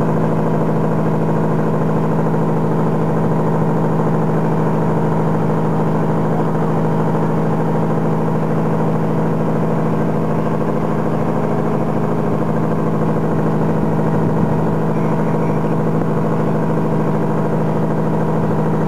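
Vehicle engine running steadily at constant speed, a low hum that does not change.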